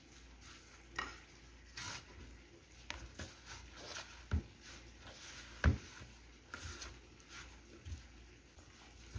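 A hand kneading crumbly flour-and-butter dough in a plastic mixing bowl: soft, irregular rubbing and squishing, with a couple of dull knocks about halfway through.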